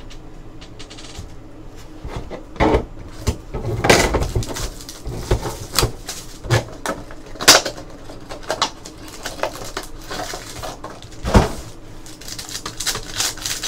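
Trading-card packs and a cardboard box being handled on a table: a string of irregular clicks, taps and rustles, with a few louder knocks and scrapes.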